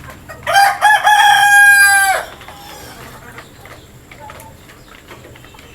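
A desi rooster crowing once, a short opening note then a long held note that falls away at the end, loud over faint background clucking.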